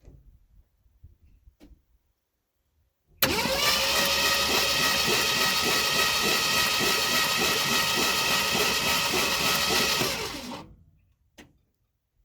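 1974 Ford F100's starter motor cranking the engine over for about seven seconds with a steady rhythmic churn. The engine turns but does not fire, and the even cranking shows that the once-seized engine now turns over freely.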